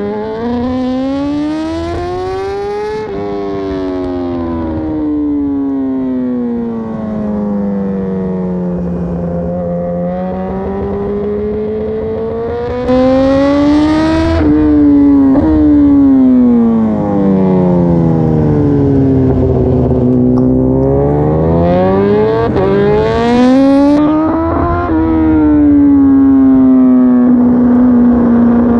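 2018 BMW S1000RR's inline-four engine at racing speed from the bike itself: its pitch falls as it slows into corners and climbs as it accelerates out, three times over. A few sudden small breaks in the note mark gear changes, and there are short bursts of hiss.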